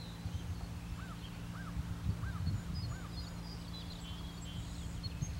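Dawn birdsong by the shore: a bird gives four clear, arched whistled notes about two-thirds of a second apart, over many faint, high chirps from small birds. A low, steady hum runs underneath.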